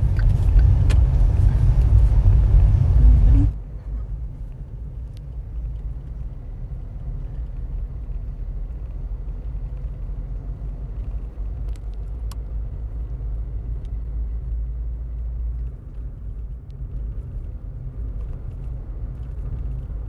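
Car driving on the highway, heard from inside the cabin: a steady low rumble of tyres and engine. For the first few seconds a louder rushing noise lies over it and cuts off abruptly about three and a half seconds in.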